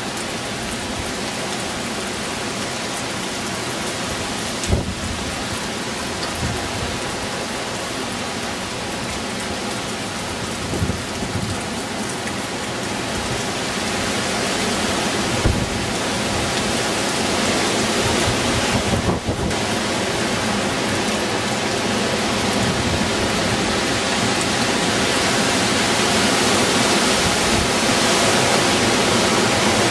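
Hurricane wind and driving rain: a steady rushing noise that swells louder about halfway through, with a few short thumps.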